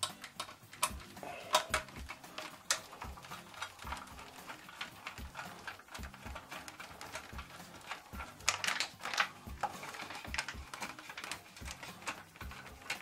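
Hand screwdriver turning a screw in the sheet-metal wiring box of a bathroom exhaust fan housing, with the housing handled: scattered small metal clicks and taps, a cluster of louder ones about eight to nine seconds in.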